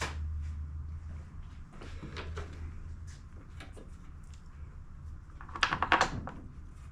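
Scattered clicks and light knocks of hands working parts on a small riding-mower engine, over a steady low hum. A quick cluster of clicks, the loudest sound, comes about five and a half seconds in.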